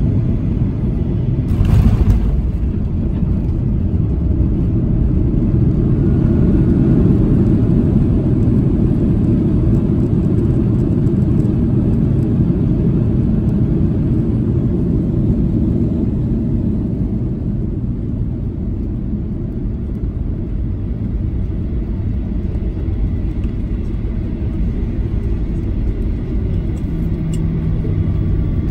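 Inside the cabin of a Boeing 737-800 landing: a thump about two seconds in as the wheels touch the runway, then a loud rumble as the jet decelerates on the runway with its spoilers up. The rumble swells over the next few seconds and slowly eases as the aircraft slows, and a low steady hum comes in near the end.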